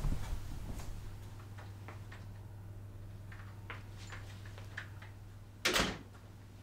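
Soft taps and clicks of people moving about, footsteps and a door handle, over a steady low hum, with one short, louder rush of noise about five and a half seconds in.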